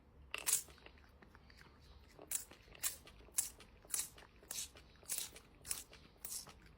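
Crunching chewing, a sharp crunch about half a second in and then a steady run of about two crunches a second.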